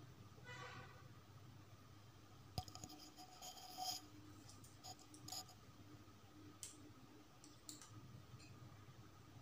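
Faint scattered clicks and light taps as small pearl beads and a plastic glue tube are handled on a hard floor. A cluster of clicks falls between about a third and halfway through, with a few single ticks later, over a low steady hum.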